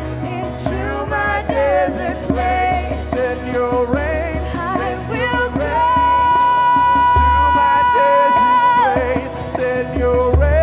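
Worship song music: a female voice sings a melody over the band's accompaniment, holding one long high note for about three seconds past the middle before it falls away.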